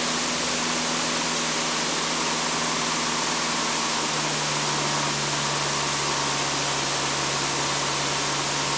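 Steady hiss of a light aircraft's intercom audio with the Decathlon's engine and propeller as a low, even drone underneath; the drone rises slightly in pitch about four seconds in.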